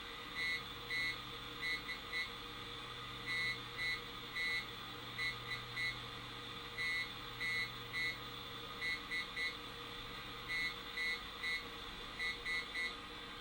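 Morse code beeps coming out of a small AM radio tuned between stations: short and long tones, hand-keyed through a spark gap over water fed by negative ion generators, over steady radio static.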